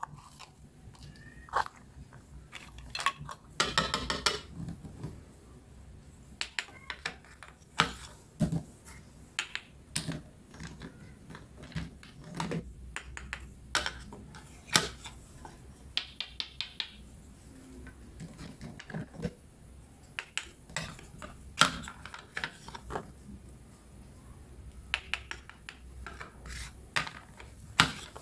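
Hard plastic toy pieces clicking and tapping as play vegetables are set on a plastic cutting board and cut apart with a toy knife, with two longer rasping tears, about four seconds in and again around sixteen seconds.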